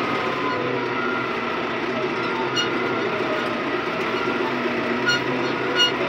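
John Deere 5090E tractor's diesel engine running steadily under way, heard from inside the closed cab, with a few short clicks.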